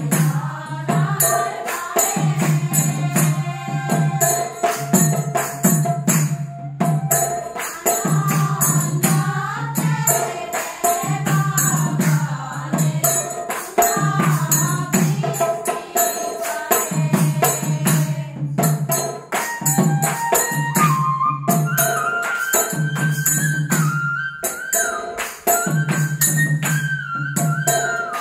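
Assamese naam devotional music: a women's group singing with a lead voice, over small hand cymbals (tal) struck in a fast steady beat and a small nagara drum. In the second half a bamboo flute (bahi) plays a held melody.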